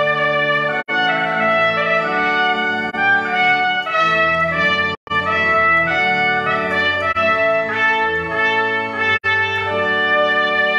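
Trumpet playing a melody of held and moving notes over organ accompaniment. The recording cuts out for an instant three times: about a second in, at the middle, and near the end.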